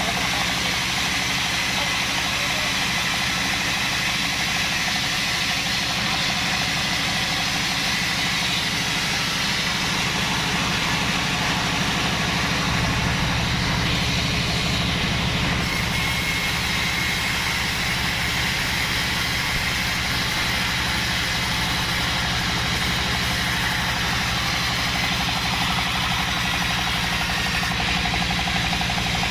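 A 36-inch band sawmill running steadily, its motor droning under a continuous hiss of the blade sawing through acacia wood. The low drone grows fuller for a few seconds around the middle.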